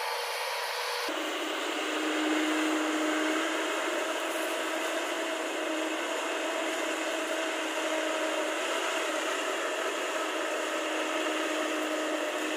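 Steady diesel drone of a crawler excavator's engine and hydraulics working while it loads soil, with a constant humming tone on top. About a second in the sound changes abruptly and a lower, fuller hum comes in.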